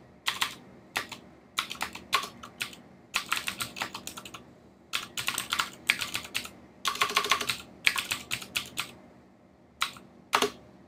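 Typing on a computer keyboard: quick runs of key clicks in bursts separated by short pauses, with two single key presses near the end.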